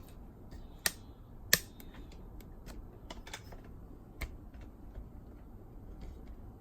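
Clicks and taps from handling the Pioneer SK-750 boombox's case as its front panel is taken off: two sharp clicks about one and one and a half seconds in, then lighter scattered ticks and one more click past four seconds.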